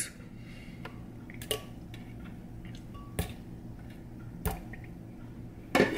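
Strawberries plopping one by one into almond milk in a glass blender jar, a few soft, spaced-out plops and knocks, with a louder clatter near the end.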